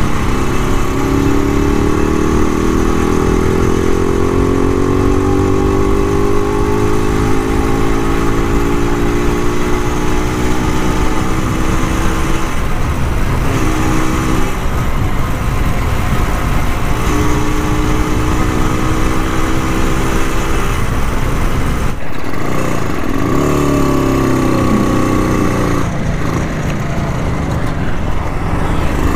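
Rajdoot 175 two-stroke single-cylinder motorcycle engine running under way, its pitch climbing as the bike accelerates, with short breaks at gear changes. It drops off briefly near the end and picks up again, over steady wind and road noise.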